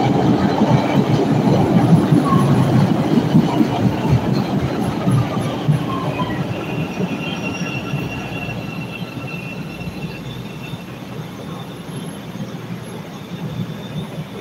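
CTA 'L' train pulling in alongside an elevated platform, its wheels rumbling on the track, fading steadily as it slows, with a faint high wheel squeal in the middle.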